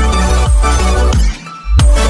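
Electronic background music with a heavy bass line and a beat about twice a second; it drops out briefly about one and a half seconds in and comes back on a strong hit.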